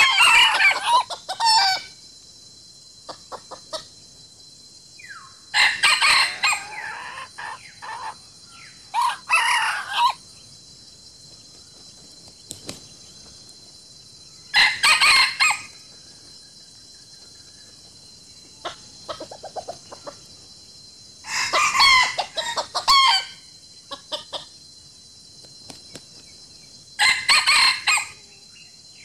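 Roosters crowing again and again, about six crows spaced several seconds apart, with softer chicken clucks between them. A steady high hiss runs underneath.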